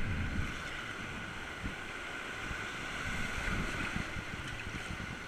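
River whitewater rushing steadily around a raft, with wind buffeting the action-camera microphone and a few brief low thumps.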